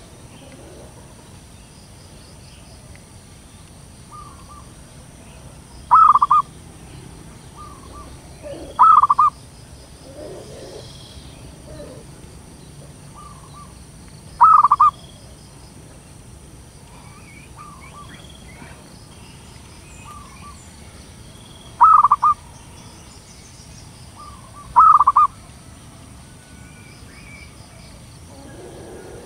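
Zebra dove (perkutut) cooing: five loud, short cooing phrases a few seconds apart, with fainter short bird notes between them.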